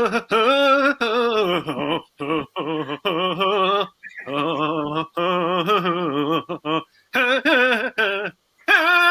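A man humming a tune without words, in wavering, warbling phrases broken by short pauses.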